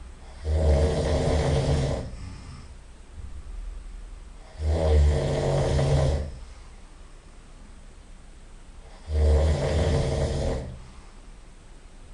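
A person snoring loudly: three long, rough snores about four and a half seconds apart, with quieter breathing between them.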